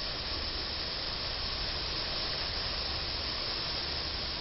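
Steady hiss of a heavy downpour, with floodwater rushing along the street.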